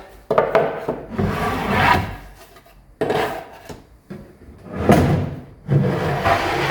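Wooden spacer planks being pulled out from under a newly hung drawer: wood scraping and sliding against wood in several separate strokes, some with a squeaky edge.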